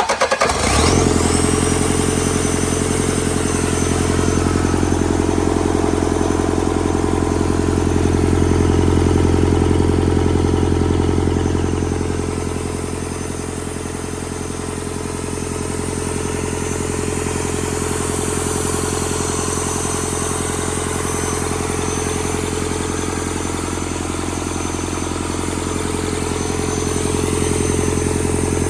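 Rebuilt Doosan D34P diesel engine catching as it starts and then running steadily under test, with a brief high whine that settles within the first second. Its level eases down a little about halfway and rises again near the end.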